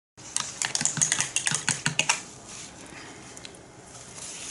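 A quick run of light, irregular taps and clicks for about two seconds, then a faint hiss.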